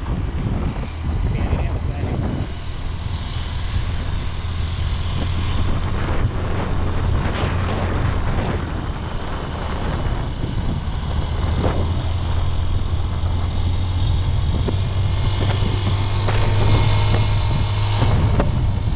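Steady low rumble of vehicles running, with a constant deep hum, swelling slightly louder near the end.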